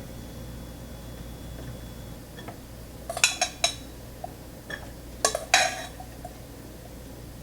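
Kitchen utensils clinking against dishes in two short clusters of sharp clinks, about three seconds in and again about five seconds in, over a steady low hum.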